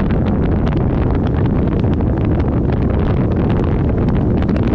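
Wind rumbling on an action camera's microphone as a Dodge Ram 3500 pickup drives along a gravel dirt road, with the truck's running and tyre noise underneath and frequent small ticks and crackles throughout.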